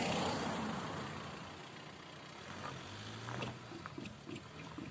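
A car passes close by, its tyre and engine noise fading over the first second or so. It then drives over the level crossing, giving a few short knocks as its wheels cross the rails, while a low engine hum sets in.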